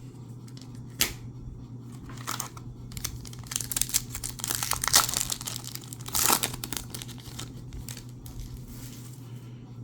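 Foil wrapper of a hockey card pack crinkling and tearing as it is opened, in several short bursts after a sharp click, over a steady low hum.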